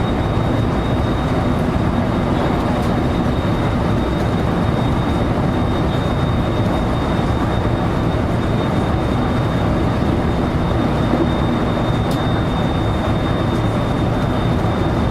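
Steady running noise of a JR local train heard from inside the front car: an even rumble of the wheels on the track, with a thin, steady high tone over it and a single sharp click about twelve seconds in.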